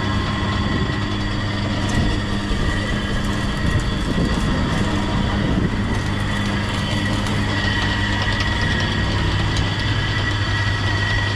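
Motorised sugarcane juice press running with a steady hum.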